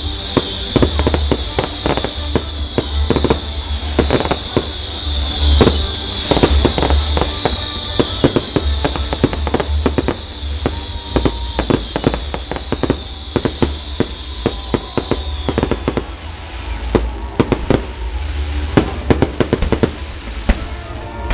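Fireworks display finale: a dense, irregular barrage of firework bangs. Until about three-quarters of the way through it runs under a high shrill note that keeps sliding downward.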